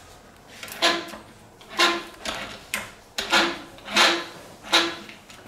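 Workshop tool work on an engine: about seven short, sharp mechanical strokes, roughly one a second, each with a faint metallic ring.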